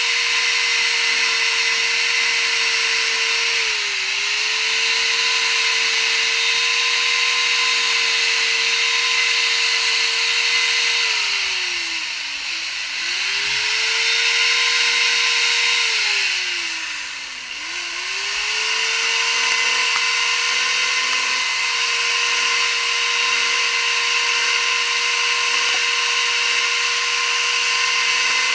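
Small carving chainsaw running at high, steady revs while it cuts feather grooves into wood. Its whine sags in pitch three times, a few seconds in, about halfway and a little later, as the chain slows under load, and each time it comes back up.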